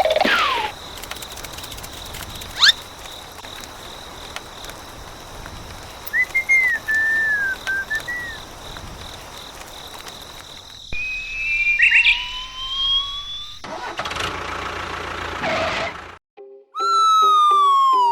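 A string of whistle-like sound effects over a steady noisy background: a short wavering chirp, then rising whistle tones, and near the end a long falling slide-whistle tone.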